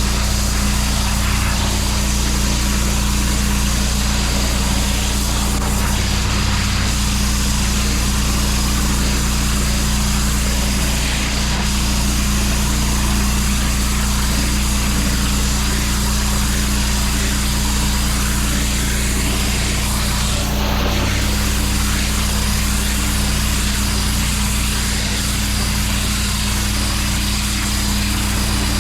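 Pressure washer running steadily: a constant engine hum under the hiss of the high-pressure water jet on block paving.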